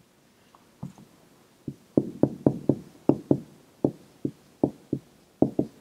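Dry-erase marker tapping against a whiteboard as a word is written: a quick, uneven run of about fifteen short taps, starting about a second in.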